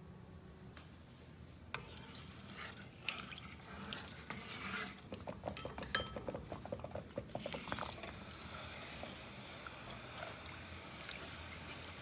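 Cookware clinks and knocks, then a spatula stirring and scraping in a pot of tapioca liquid as it thickens on the stove. In the middle there is a quick run of regular ticks, and after that a steady rustling scrape.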